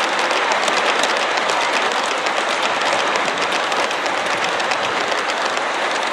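G-scale model train cars rolling past close by, their wheels giving a steady rattle of fast clicks on the track.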